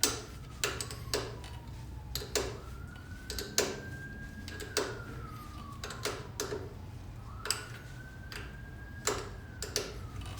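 Wrench clicking and clinking against a motorcycle brake line fitting as it is worked loose, sharp metallic ticks at uneven spacing, about one or two a second. Behind it a faint tone slowly rises and falls, repeating every few seconds, like a distant siren.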